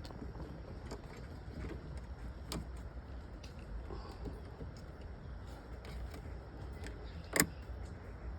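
Scattered small clicks and knocks of metal parts being handled, with one sharper click about seven seconds in, over a low steady rumble.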